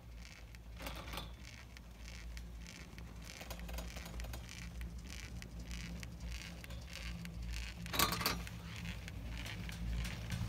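Rustling and crackling handling noise from a phone being held in clothing and gloves, over a low steady hum, with one louder rustle about eight seconds in.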